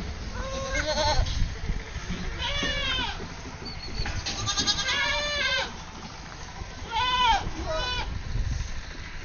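Goats bleating, about five separate calls over several seconds, the longest about halfway through.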